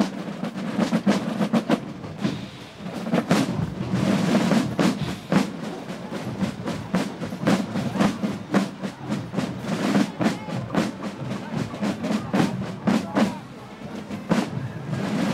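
A marching group of Basel drummers playing Basler drums: a steady march rhythm of rapid sharp strokes and rolls.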